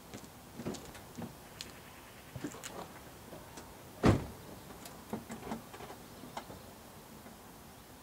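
Toyota Yaris car door shut with one loud thump about four seconds in, with scattered light clicks and knocks before and after it.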